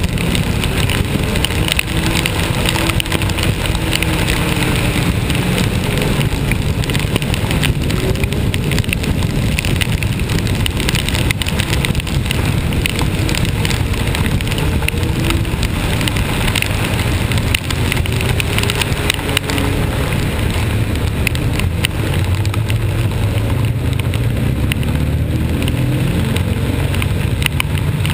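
Vehicle engine running under load with a steady low hum, its pitch wavering slightly as the revs change, under a constant hiss of wind and wet-road or rain noise.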